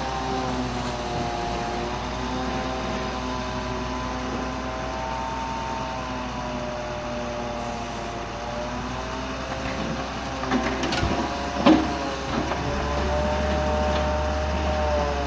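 Grapple truck's running engine and crane hydraulics whining, the pitch slowly rising and falling as the knuckle-boom lifts and swings a load of waste cardboard. A few sharp knocks come about ten to twelve seconds in, and near the end the low engine hum grows louder.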